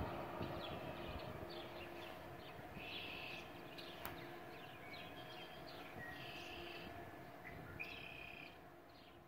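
Birds chirping in short repeated calls over a faint steady hum, the whole sound fading out.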